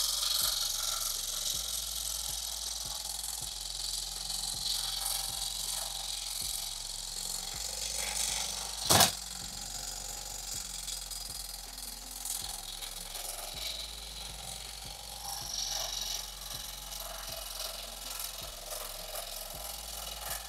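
Homemade jigsaw made from an old sewing machine, its needle bar driving a saw blade up and down through a thick piece of wood: a steady hiss of the blade cutting, mostly high-pitched. One sharp knock stands out a little before the middle.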